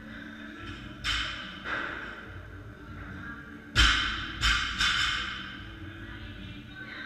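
Loaded barbells with bumper plates landing on a rubber gym floor: a few thuds with a metallic clank and room echo, the loudest just under four seconds in followed by two more in quick succession, over faint steady background music.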